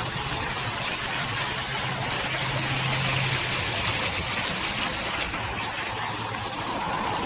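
Decorative water fountain running, a steady rush of falling and splashing water.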